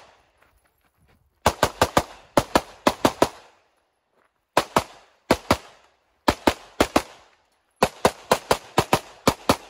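Rapid pistol fire from an Open-division competition pistol: quick strings of several shots each, separated by short pauses of about a second.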